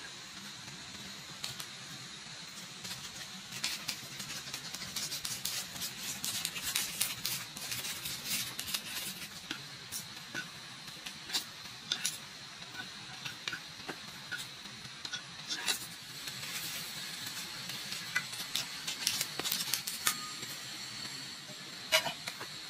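A metal fork and utensil clicking and scraping against a wooden plate as noodles are tossed and mixed: many small irregular taps over a steady background hiss, with a sharper knock near the end.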